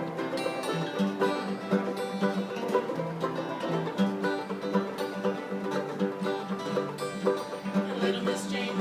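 Live acoustic old-time string music: an instrumental passage of quick, steady plucked-string notes.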